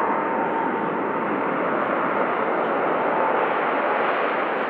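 Boeing 777-200's twin jet engines running at low taxi thrust as the airliner rolls by: a steady, even rushing sound with a faint whine early on.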